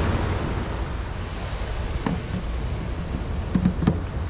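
Steady surf and wind noise on the microphone, with a few short plastic clicks and knocks as the car fridge's removable door is handled and fitted, about two seconds in and again near the end.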